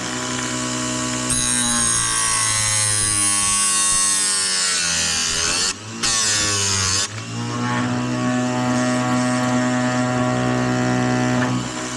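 Oregon electric chainsaw-chain grinder running, its motor humming steadily. About a second in, the wheel bites into a chain cutter with a grinding hiss and the hum sinks in pitch under the load. The hum rises back to its steady pitch about seven and a half seconds in, as the wheel comes off.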